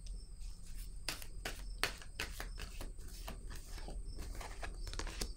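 Tarot cards being handled: a run of light, irregular clicks and scrapes, several a second.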